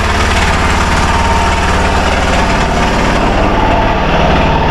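Arctic Cat Prowler 500 side-by-side engine running steadily without any rattle, its exhaust gasket newly replaced.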